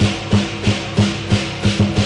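Lion dance percussion: a big drum beaten in a steady rhythm about three strikes a second, each hit sounding together with a cymbal clash.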